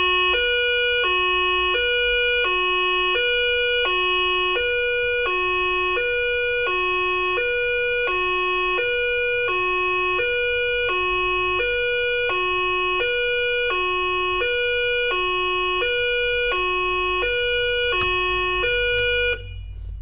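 Two-tone ambulance siren alternating steadily between a low and a high note, each held for about half a second, over a low rumble. It cuts off abruptly shortly before the end.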